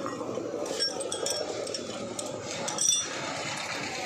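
A few light metallic clinks of engine parts and tools being handled as the cylinder head is fitted onto the block, over a steady background hiss of workshop noise.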